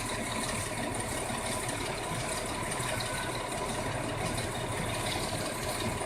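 An engine running steadily at idle, a continuous even drone with no change in pace.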